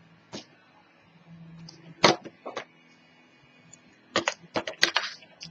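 Paper strips and chipboard pieces handled by hand on a cutting mat: short sharp crackling clicks, a few spaced out, then a quick cluster of them about four seconds in.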